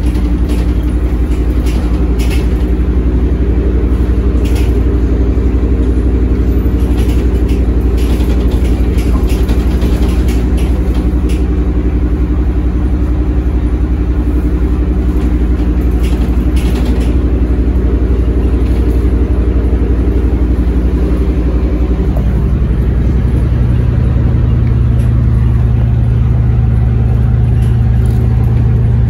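LiAZ-677MB city bus's petrol V8 engine running steadily, with faint clicks or rattles over the first half. About three-quarters of the way through, the engine note changes to a lower, stronger hum.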